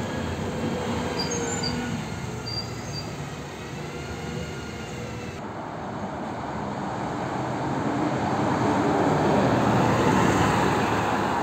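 Coach engine and tyres drawing near and passing close by, rising from general traffic noise about six seconds in to its loudest around ten seconds as the coach goes past.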